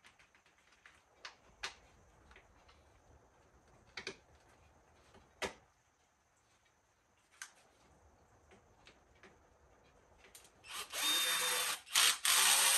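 A few light clicks and taps of parts being handled, then near the end a cordless drill runs in two bursts with a brief stop between them, driving in an Allen-head bolt. The drill is the loudest sound.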